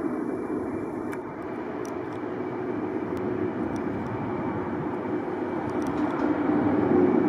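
Boeing 747-400 freighter's four jet engines climbing out after takeoff: a steady, dense jet noise that grows louder near the end.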